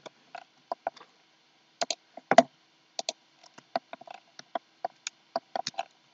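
Computer keyboard keys and mouse buttons clicking, with the notched scroll wheel ticking, as someone works a 3D modelling program. The clicks come irregularly, a few a second, the loudest about two and a half seconds in.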